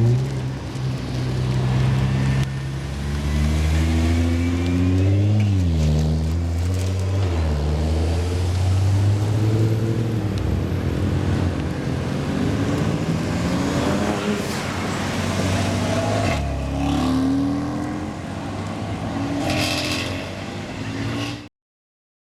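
Nissan GT-R R35 twin-turbo V6 engines running and revving, the pitch rising and falling several times. The sound cuts off suddenly near the end.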